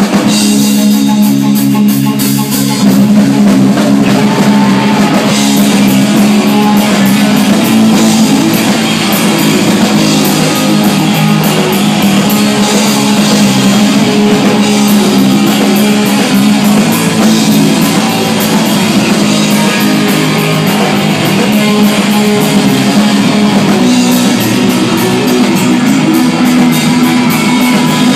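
Punk rock band playing live and loud: electric guitars and a full drum kit driving a fast, continuous song.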